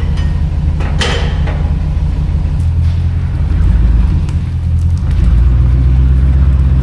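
A large engine running, a loud low rumble that grows louder about four seconds in and again about five seconds in, with a sharp metallic clank about a second in.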